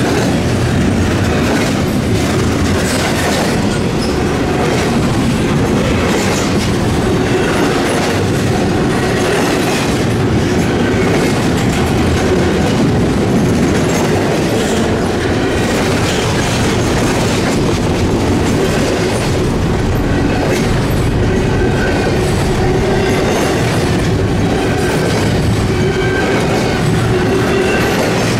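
Freight train cars rolling past close by, a steady loud rumble with wheels clicking over rail joints and short bits of wheel squeal now and then.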